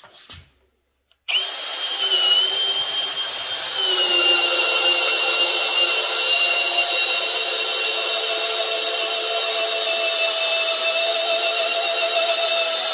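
Ridgid cordless hammer drill spinning a long auger bit into a wooden beam. The motor whine starts about a second in, drops a little in pitch a few seconds later as the bit comes under load, then runs steadily.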